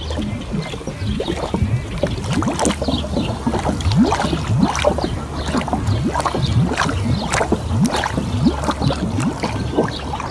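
Swimming-pool water sloshing and bubbling right against a phone's microphone as it is held at and dipped into the surface, heard as a dense run of short rising gurgles and small splashes.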